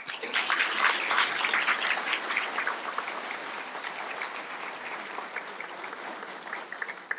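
Audience applauding, loudest in the first couple of seconds and then slowly dying away.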